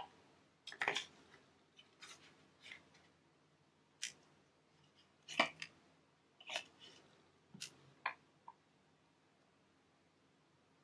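Plastic toy play-set pieces being handled: about eight separate light clicks and knocks, spaced irregularly.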